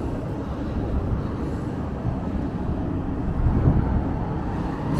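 Steady low rumble of construction-site machinery, a dense noisy din with no clear beat.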